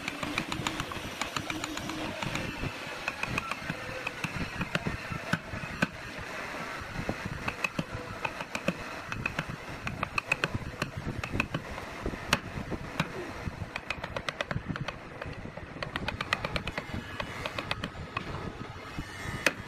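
Wooden mallet knocking on a chisel, chopping slots into a wooden board: many irregular sharp knocks.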